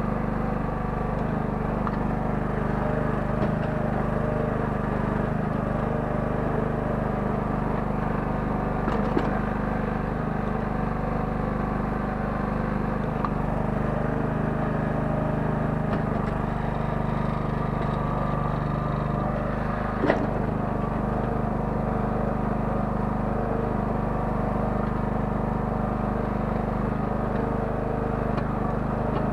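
Small 9 hp engine of a towable mini excavator running steadily under load while it digs. A few sharp knocks cut through, the clearest about twenty seconds in.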